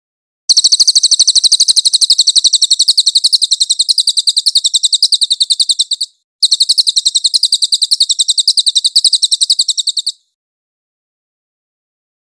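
Crested jay (cililin) giving its high-pitched rattling call, a long, rapid run of evenly repeated notes. It breaks off briefly about six seconds in, starts again, and stops about ten seconds in.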